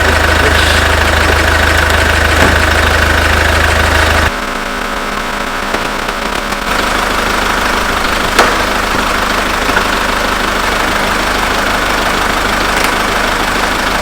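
SsangYong G4 Rexton Sports diesel engine idling steadily with the air conditioning switched on. About four seconds in, the sound changes abruptly to a somewhat quieter steady running noise.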